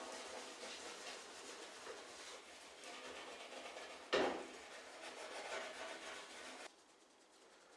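Repeated abrasive rubbing strokes on the washing machine's metal frame, as when rust is rubbed off by hand, with one sharp knock about four seconds in; the rubbing cuts off suddenly near the end.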